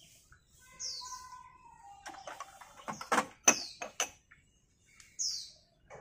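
A bird repeats a short, high, downward-sliding chirp about every two seconds. About three seconds in, a quick cluster of sharp metallic clinks, louder than the chirps, comes from a metal ladle and china bowls knocking against each other and against a metal tray.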